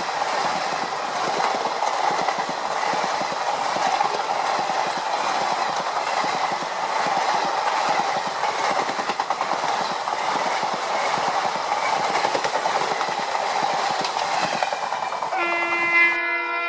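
Train running on the track, a steady rattling rumble of wheels and carriages. Near the end a train horn starts sounding one steady note, and the running noise cuts off abruptly.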